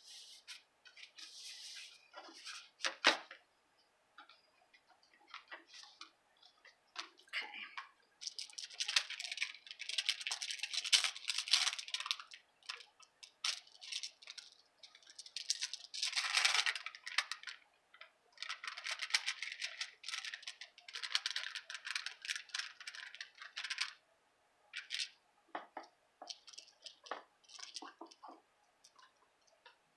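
Craft supplies being handled: irregular bursts of paper and plastic rustling, with scattered light clicks and taps.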